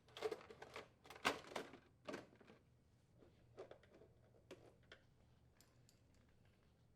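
Clicks and knocks of a plastic refrigerator dispenser housing being fitted back in place and its screws threaded in. They come thickest in the first two seconds or so, then thin out to a few faint ticks.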